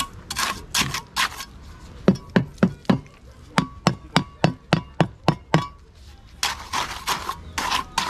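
Hammer driving nails into wood: two quick runs of blows, about four a second, a short one and then a longer one of about nine strokes, each blow with a faint metallic ring.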